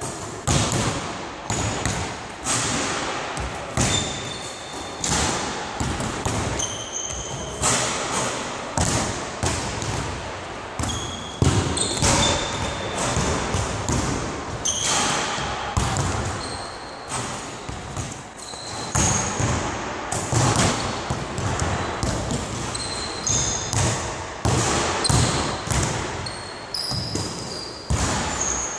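Basketballs bouncing on a hardwood gym floor: repeated sharp thuds, one every half second to second, echoing in the large hall, mixed with short high squeaks of shoes on the floor.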